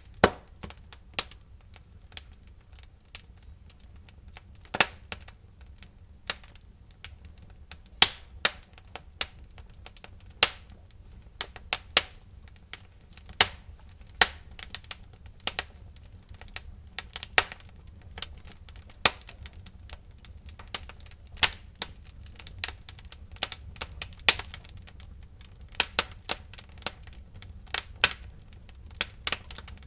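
Fire in a fireplace crackling, with irregular sharp pops and snaps over a steady low rumble.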